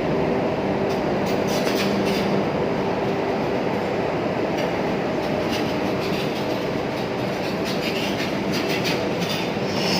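Loud, steady rumble of heavy industrial machinery with a low droning hum, broken now and then by sharp metallic clicks and squeaks.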